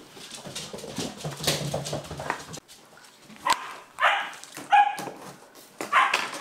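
Dog barking and yipping in about four short, loud bursts in the second half, after a stretch of softer noise.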